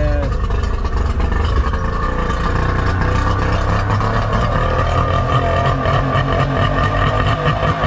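Small boat engine running steadily just after a cold start, after several days unused, with the choke still pulled fully on, which makes a great racket.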